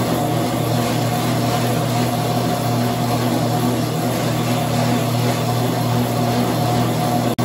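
Treadmill motor running steadily, a constant hum with a higher whine above it. The sound cuts out for an instant at the start and at the end.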